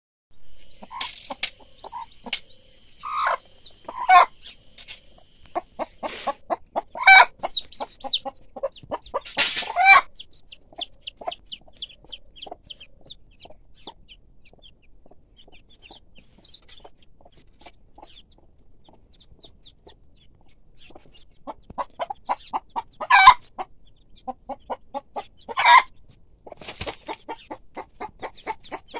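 Mother hen clucking to her chicks in runs of short, evenly spaced clucks, with a few much louder calls. Thin, high peeping from the chicks comes through in the middle.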